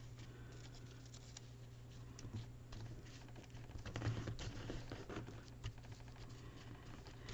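Faint rustling and light clicking of paper being handled and cut with scissors, busiest in the middle, over a low steady hum.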